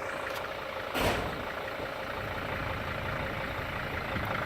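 A vehicle engine idling steadily, with one sharp thump about a second in.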